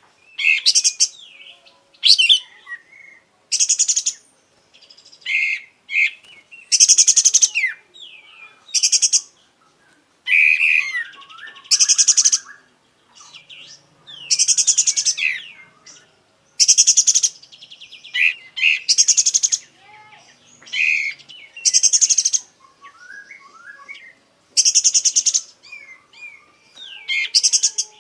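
Kapas tembak songbird singing vigorously in loud, separate phrases about every second or two. Rapid rattling trills alternate with shorter whistled and sliding notes as it runs through its repertoire.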